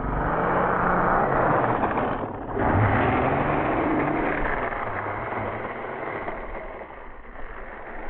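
3D-printed RC snowmobile with a Castle Creations 3800kv brushless motor driving past close by, its track throwing up snow: a loud rushing noise. It dips briefly about two and a half seconds in, surges again, then fades as the sled moves away.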